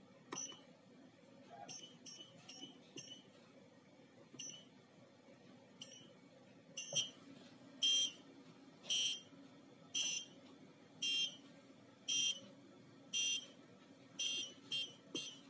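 Electronic beeper of a prop defusable bomb: a few short, irregular beeps as keypad buttons are pressed, then a steady, louder beep about once a second, then quicker keypress beeps near the end.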